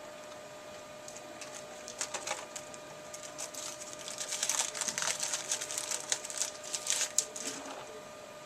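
Baseball cards and their packaging being handled: irregular crisp crackles and clicks, starting about two seconds in, thickest in the middle and dying away near the end.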